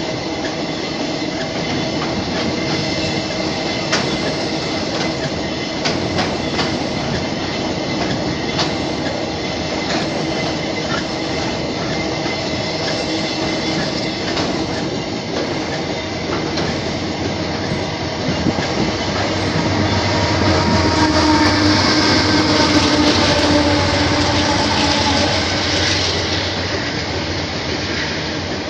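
Steel wheels of a long iron-ore freight train's wagons rolling past close by: a steady rumble with irregular sharp clacks over the rail joints. It grows louder for several seconds past the middle.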